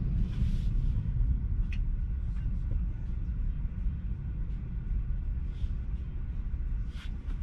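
Low, steady road and tyre rumble inside a Tesla's cabin, easing off a little as the car slows.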